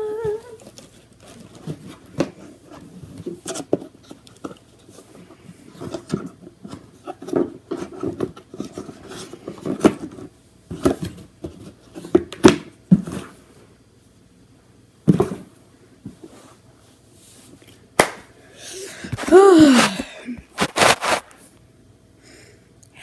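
A cardboard shoebox being handled and closed by hand: scattered knocks, taps and scrapes of cardboard. A short vocal sound falling in pitch comes about three-quarters of the way through, followed by a few more knocks.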